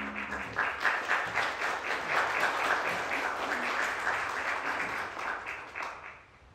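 Congregation applauding, many hands clapping together; the clapping dies away about six seconds in.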